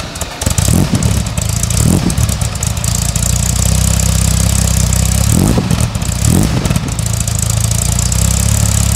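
Mercedes-Benz 280 SL's Brabus-rebuilt 2.8-litre M130 straight-six, just started and idling steadily through its twin-pipe exhaust. Four short blips of the throttle: two in the first two seconds and two a little past the middle.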